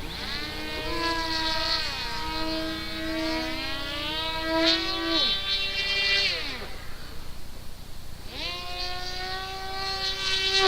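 Electric motor and propeller of a radio-controlled model plane whining, the pitch rising and falling with the throttle, falling away about five to six seconds in and climbing back up a couple of seconds later. A low wind rumble on the microphone runs underneath.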